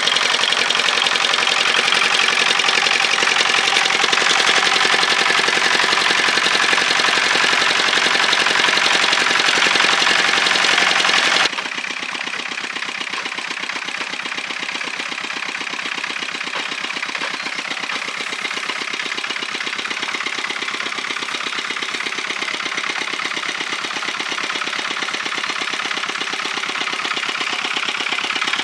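A small engine running steadily with a rapid knocking beat. About eleven seconds in the level drops suddenly, and the engine runs on more quietly.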